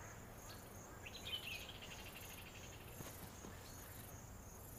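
Faint, steady chirping of insects in grassland, pulsing at an even rate, with a brief higher trill about a second in.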